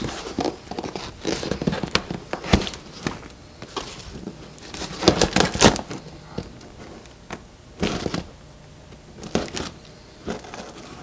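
Cardboard box being pried and torn open by hand: irregular scrapes, rustles and tearing of cardboard, with louder bursts of handling about five seconds in and again around eight seconds in.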